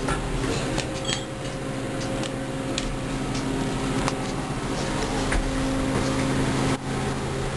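Steady electric hum inside a KONE glass elevator car, with a few light clicks.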